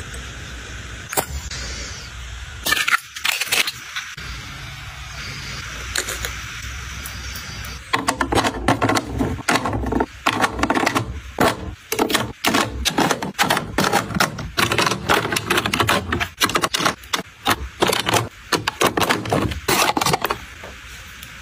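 Ornate metal-capped Flower Knows lipstick tubes being handled and set into a clear acrylic display case: a few separate clicks at first, then from about eight seconds in a fast run of sharp clicks and taps for about twelve seconds.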